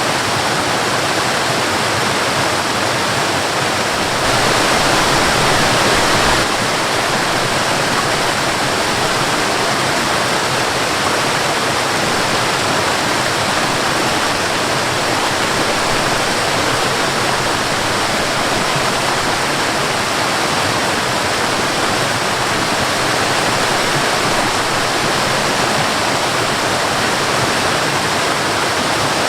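Waterfall and river water, a steady, unbroken rush of falling and flowing water, swelling slightly for a couple of seconds about four seconds in.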